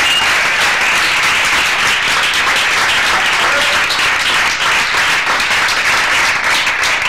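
A roomful of people applauding, steady dense clapping.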